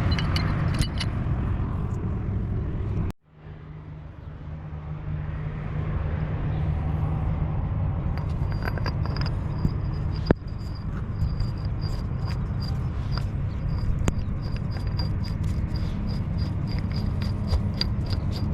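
A steady low engine rumble, broken off by a sudden cut about three seconds in and then resuming. From a little under halfway through, a rapid, regular high-pitched ticking, about three ticks a second, runs over it.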